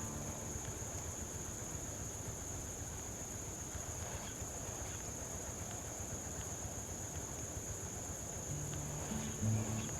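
Insects giving a steady, high, unbroken buzz over low background noise.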